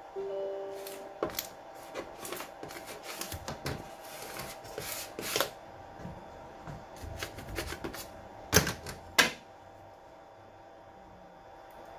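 Small 3D-printed plastic parts being handled and scraped with a metal scraper on a printer bed: irregular light clicks, taps and scrapes, with two sharper clicks late on.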